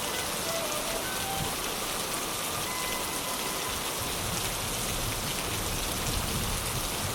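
Steady rain falling and pattering on a surface, with a faint low rumble growing under it in the second half.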